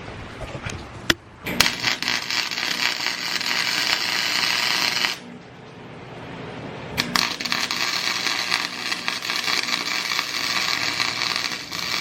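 Welding arc crackling and sizzling as a crack in a steering knuckle is welded up, in two long runs with a pause of about two seconds in the middle. A few sharp clicks come before the first run.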